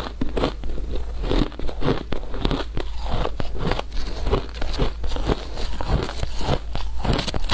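Shaved ice crunched between the teeth in a dense run of crisp crunches, with a metal spoon digging through the shaved ice in the bowl for the next scoop.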